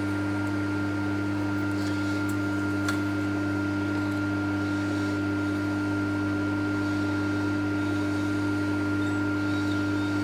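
Steady machine hum holding several fixed tones, unchanging throughout, with a couple of faint light clicks about two and three seconds in.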